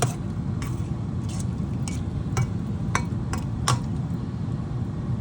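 A spoon or ladle stirring a pot of chicken tinola soup, clinking against the pan about eight times in the first four seconds.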